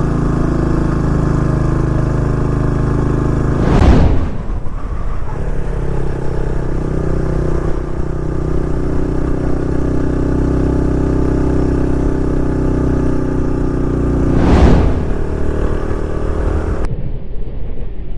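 Motorcycle engine pulling steadily under load up a long, steep climb, straining enough that the rider says it bogged down. Two brief loud whooshes cut across it, about four seconds in and again near fifteen seconds.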